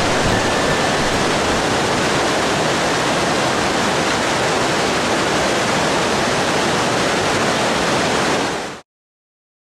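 Steady rush of cascading whitewater, an even, unbroken roar that fades out quickly about a second before the end, leaving silence.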